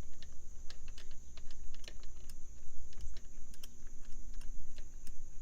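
Light, irregular clicks and taps of small metal parts and hand tools being handled while fitting new spark plugs into an outboard's cylinder head. A steady high tone runs underneath.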